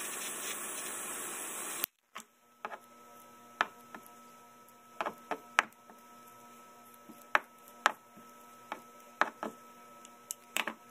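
Handheld gas torch flame hissing steadily, shut off suddenly about two seconds in. Then scattered sharp clicks and snaps of steel pliers gripping and working a small plastic part.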